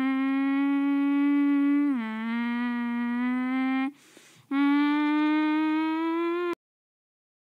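A person humming a steady low note as a mouth-made vehicle engine sound for toy vehicles driving past. The pitch drops a step about two seconds in; after a short breath near the middle the hum starts again, creeps slightly upward, and cuts off abruptly about a second before the end.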